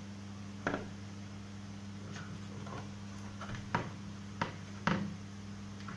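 Screwdriver and plastic cooker casing clicking and tapping a few times while the last screw of the induction cooker's housing is taken out, over a steady low hum.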